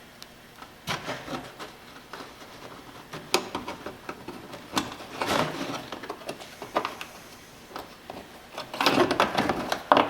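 A plastic zip tie being threaded and pulled tight through the plastic engine undercover, standing in for a missing retainer: scattered clicks and plastic handling, then a longer ratcheting stretch near the end.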